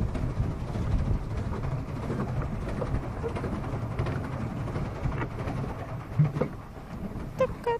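Steady low rumbling of wind and water around a pedal-powered paddle boat under way, with a few faint knocks. Near the end comes a quick run of short pitched calls.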